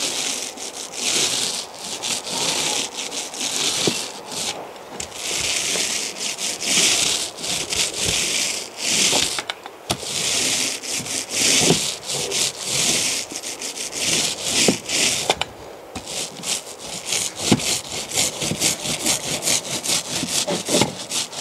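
Paint roller loaded with paint rolling back and forth along fibre-cement Hardie plank weatherboards: a swishing hiss in repeated strokes about a second long, with small clicks between strokes.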